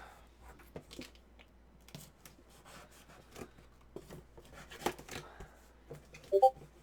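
Cardboard shipping box being cut and torn open with a butterfly knife: scattered scrapes and small clicks, with one sharper click about five seconds in.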